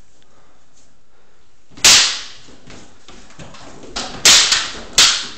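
Wooden practice swords striking each other in sparring: one sharp clack about two seconds in, then a quick run of three clacks a second or so before the end.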